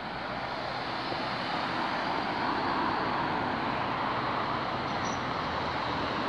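Steady road traffic noise on a busy town street, with a car passing and the noise swelling a little a couple of seconds in.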